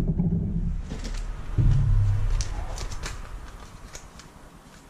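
A low rumble that swells twice and then dies away, with light crinkling clicks from a small plastic bag of shifter hardware being handled.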